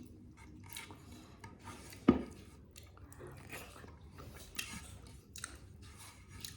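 Close-up chewing and wet mouth sounds of someone eating chicken curry and rice, in short irregular smacks. One sharp knock about two seconds in is the loudest sound.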